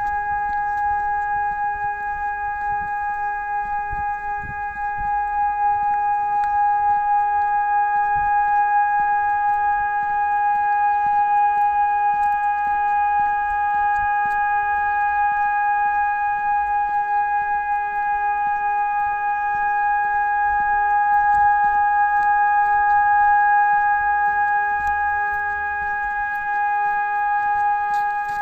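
Hörmann ECN 600 electronic siren sounding one steady, unbroken tone at full power during a siren test.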